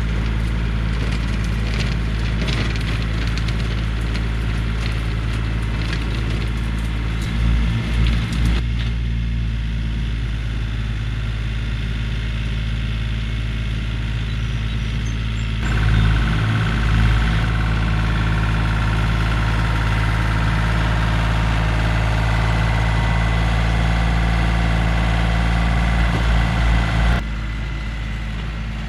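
Yanmar compact tractor's diesel engine running steadily while working a rear PTO rototiller, with a few brief surges. The engine sound cuts off near the end, leaving quieter open-air noise.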